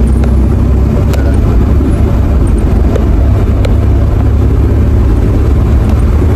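Cabin noise of a VAZ-2106 (Lada 2106) on the move: a steady, loud drone of engine and road noise heard from inside the car through a phone microphone, with a few light clicks.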